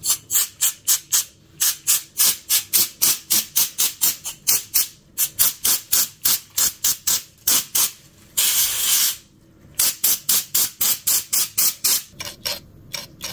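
Ultra Duster compressed-air can sprayed in rapid short puffs, about three or four a second, with one longer blast about eight seconds in, blowing dust out of a clogged gaming laptop's fans and heatsinks. The puffs grow fainter near the end.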